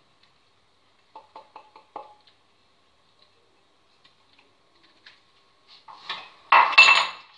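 A drinking glass of desiccated coconut being emptied into a plastic mixing bowl: about five light taps a little over a second in, then a louder clink and clatter of kitchenware with a brief ring near the end.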